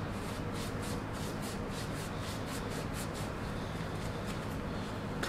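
Quick repeated rubbing strokes, about four a second, fading after about three seconds: a rag wiping old grease out of a wheel bearing in a rear hub.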